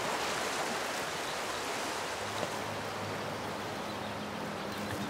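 Steady rushing of a flowing creek. A low held tone of music enters about halfway through.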